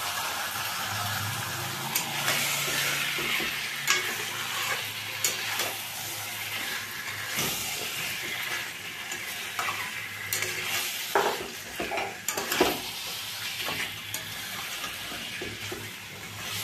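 Spiced chicken pieces sizzling in oil in a metal kadai while a metal spatula stirs and turns them, with scattered scrapes and knocks of the spatula against the pan. This is the chicken being browned in its masala (the koshano stage of a Bengali curry).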